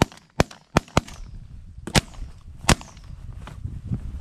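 Several shotguns firing a ragged volley at ducks overhead: four quick shots in the first second, then two more spaced out, the last near the three-second mark.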